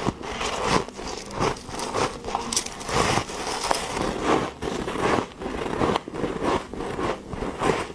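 Soft, powdery freezer frost being bitten off a spoon and chewed: a steady run of crisp, crackly crunches, about one to two a second.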